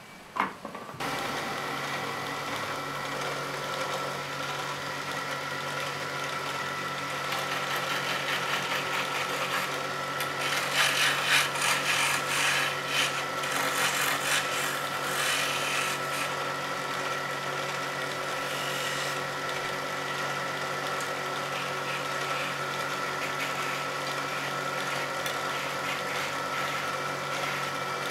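Motor-driven wood lathe running with a steady hum while a hand-held chisel cuts into a small spinning spindle of soft pale wood, shavings scraping and spraying off. The cutting gets louder and rougher between about ten and sixteen seconds in.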